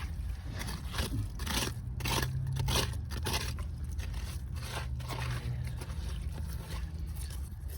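Digging in dirt around a buried bottle: a run of short crunches and scrapes, thickest in the first few seconds, over a steady low hum.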